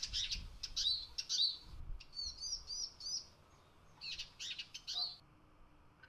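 Eurasian siskins calling at a trap cage: three bouts of thin, curved whistled notes, with a quick run of four near the middle.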